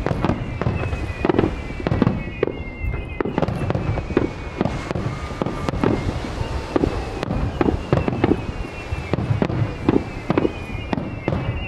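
Fireworks display: aerial shells bursting in quick succession, a continuous run of booms and sharp cracking bangs.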